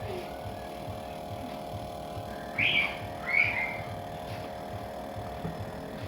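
Embraco freezer compressor running with a steady hum while it is recharged with R600 refrigerant. Two short high-pitched chirps come about two and a half and three and a half seconds in.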